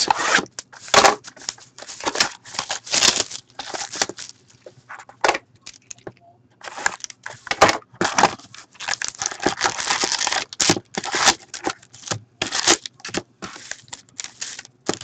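Sealed Upper Deck SPx hockey card box being opened by hand: the wrapping and cardboard torn, then the foil card packs handled and spread out. It is a run of tearing, crackling and crinkling with a short pause about six seconds in.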